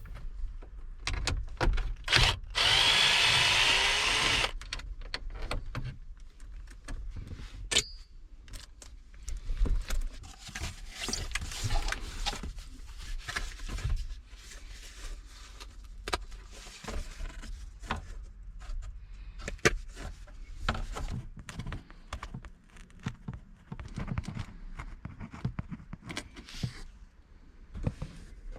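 A cordless drill/driver runs for about two seconds, starting about two and a half seconds in. After it come scattered clicks, knocks and rattles of hand work with tools and parts.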